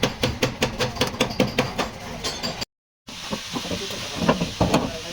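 Hammer tapping on car body sheet metal: a rapid, even run of about five strokes a second, then, after a short break, slower irregular knocks.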